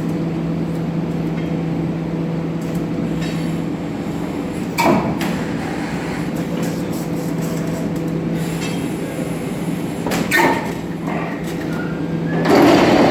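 Drilling rig machinery at work with an automatic GKSh-8000 pipe tong: a steady mechanical hum with a constant low tone, two sharp metallic clanks about five and ten seconds in, and the noise growing louder near the end.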